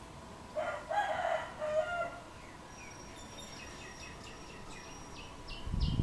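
A rooster crows once, a call about a second and a half long starting about half a second in. Small birds chirp in quick repeated high notes behind it. A low rumble comes in near the end.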